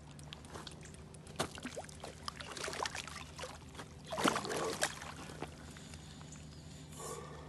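Hooked carp splashing at the surface as it is drawn into a landing net, with water sloshing around the net; the loudest splashes come about four seconds in, as the fish goes into the net.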